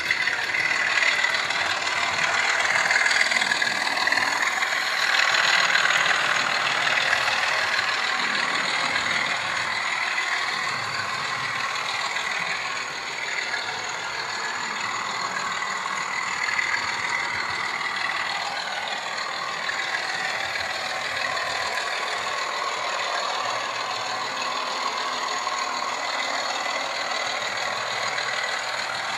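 Digital model railway diesel locomotives running on the layout's track: a steady mechanical running sound with a thin high whine, louder for the first several seconds and then even.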